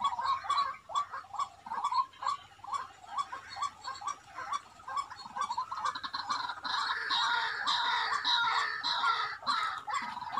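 Animal calls: quick, repeated short chirping notes, joined about six seconds in by a denser, higher-pitched chirping chorus.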